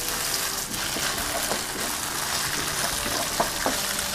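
Tofu cubes sizzling in shallow hot oil in a nonstick wok, with a few light taps as a wooden spatula turns them over.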